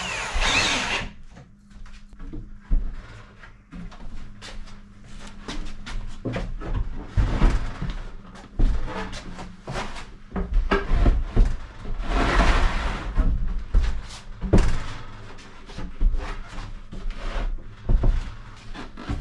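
Wooden cabinet parts being fitted together: irregular knocks and clicks of wood on wood, with a few longer scraping or sliding sounds.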